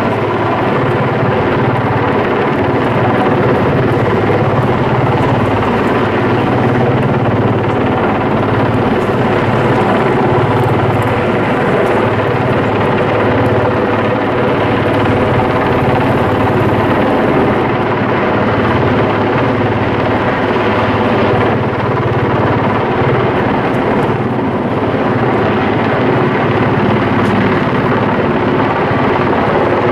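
Eurocopter Puma twin-turbine helicopter running close overhead: a loud, steady drone of rotor and turbines with several even tones, unbroken throughout.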